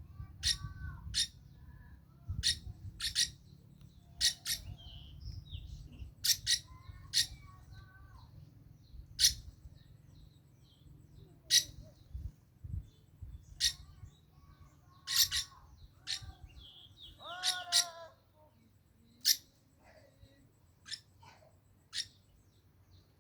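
Iris lorikeet giving short, sharp, high-pitched screeching calls at irregular intervals of a second or two, mixed with a few lower warbling calls. A low hum runs underneath until near the end.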